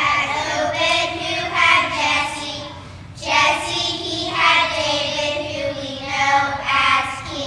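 A group of young children singing together in unison, in two phrases with a short break for breath about three seconds in.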